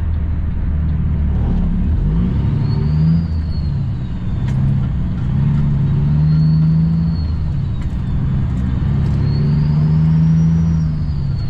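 A semi truck's diesel engine idles, then pulls away about two seconds in and accelerates through the gears. The engine note climbs and holds, with short dips at the shifts. A turbo whistle rises and falls with each gear.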